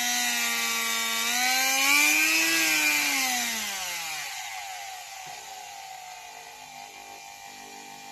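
Titan rotary multi-tool's electric motor running with a high whine; its pitch rises as the speed dial is turned up about two seconds in, then falls and quietens as it is dialled down, running on at a lower speed.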